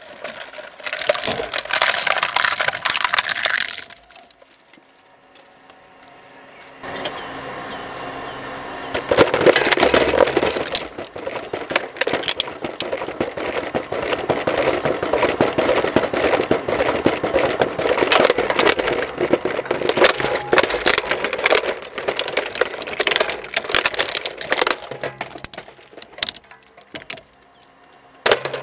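Twin-shaft shredder's cutters crunching and cracking hard plastic toys. A toy truck is chewed up in the first few seconds; after a short lull, a large plastic toy airplane is broken up in a long run of cracking and snapping that thins out near the end.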